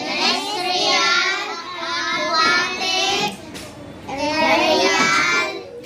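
A group of children reciting an answer in unison in a drawn-out, sing-song chant, in two long phrases with a brief pause a little past halfway.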